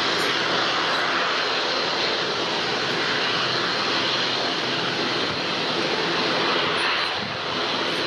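CFM56 turbofan engines of a Boeing 737-300 freighter running steadily as it rolls along the runway: a steady jet rush with a thin high whine on top.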